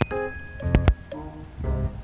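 Background music: a run of short pitched melody notes with a few sharp percussive hits.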